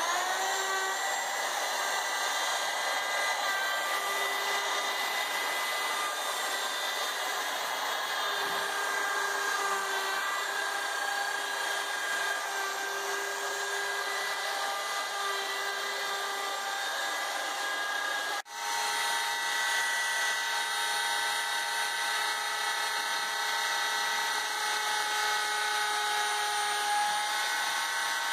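Electric router running at speed with a steady high whine as its bit cuts through the tabs holding plywood boat-kit parts in their sheet. About two-thirds through there is a sudden brief break, and a second router, mounted upside down in a router table, runs on, cleaning up what is left of the tabs.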